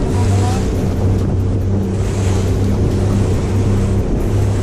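Boat engine running at a steady hum, with wind buffeting the microphone and water noise.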